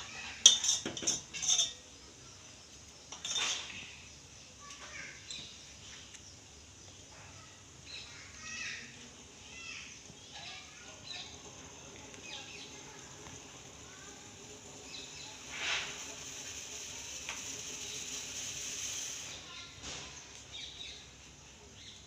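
Metal kitchenware clinking against a pot several times in the first two seconds and once more about three seconds in. Then a pot of spiced tea boils hard on a gas stove: a low steady hiss with a few faint clinks, swelling between about fifteen and nineteen seconds.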